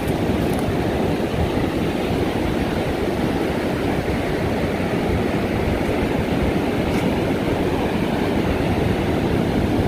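Ocean surf breaking on the beach, mixed with wind buffeting the microphone: a steady, low rushing noise.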